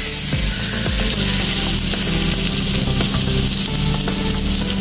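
A block of butter sizzling steadily as it melts and foams in a hot wok, with light crackling.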